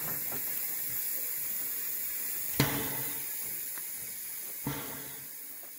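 Narrow-gauge steam locomotive standing with steam hissing steadily, with two sharp knocks about two seconds apart. The sound fades away near the end.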